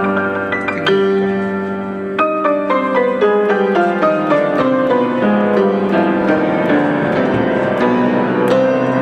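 Background music led by a piano-like keyboard, with held chords and a descending run of notes.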